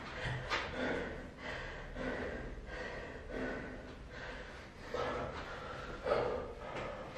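A man breathing hard through mouth and nose, a gasping breath roughly every second, winded from a set of burpees as he recovers.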